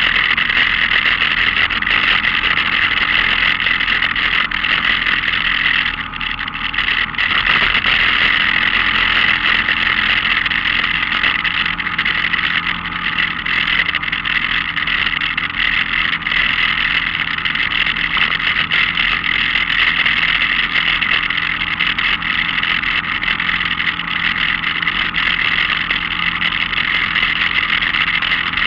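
Off-road vehicle's engine running steadily while it drives a rough dirt trail, under a constant hiss, with a brief easing about six seconds in.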